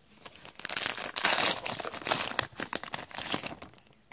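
Paper wrapper of a trading-card pack being torn open and crinkled by hand, a dense crackling that is loudest about a second and a half in and dies away shortly before the end.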